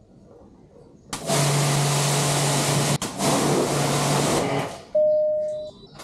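Electric pressure washer running and spraying: a steady motor hum under the hiss of the water jet for about three and a half seconds, broken off briefly once partway through. Near the end a single clear tone sounds and fades away.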